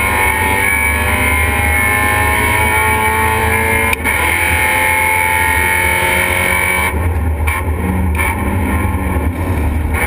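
Race car's engine heard from inside the stripped, caged cabin, pulling hard with its pitch rising. A quick gear change breaks the note about four seconds in, and the engine then runs on under load.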